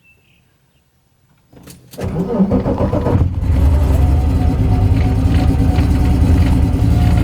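Volkswagen 2.8 litre VR6 engine in a Golf mk2 being cranked and firing up about two seconds in, flaring briefly and then settling into a steady idle. The engine is the one being diagnosed for a misfire.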